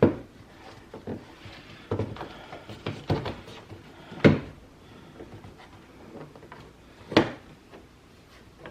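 Plastic trim clips and push rivets on a pickup's interior door panel popping loose as the panel is pried off, heard as about five separate sharp pops and knocks. The loudest comes a little after four seconds in.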